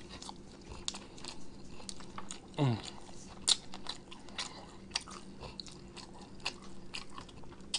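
Close-miked eating sounds of a man biting meat off a barbecue chicken drumstick and chewing it, with many short wet smacks and clicks. A brief falling vocal grunt comes about three seconds in.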